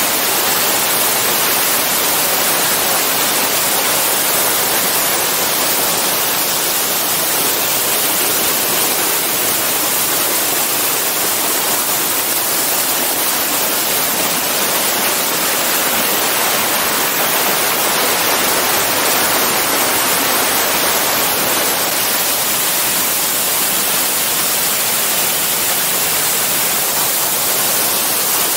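Waterfall rushing: a loud, steady sound of falling water.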